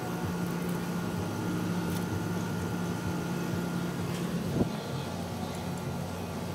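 Window air conditioners running: a steady compressor and fan hum, with one brief knock about four and a half seconds in.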